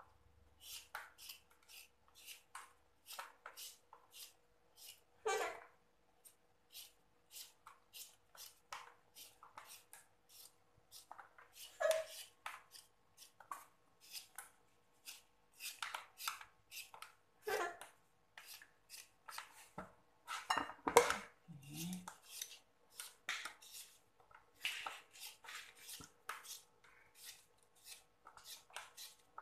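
Hand-held vegetable peeler scraping the skin off an unripe green mango in short, quick strokes, about two to three a second, with a few louder strokes along the way.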